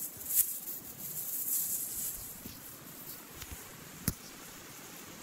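Leafy plants rustling and being handled in the first two seconds, then faint footsteps on dry dirt and a single sharp knock about four seconds in.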